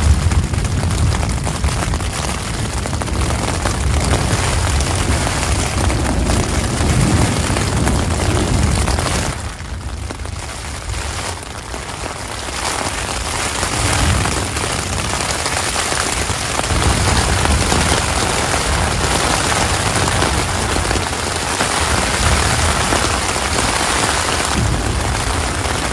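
Heavy thunderstorm rain, a dense steady hiss, with a deep low rumble under it that eases about nine seconds in and then comes back more weakly as the rain builds again.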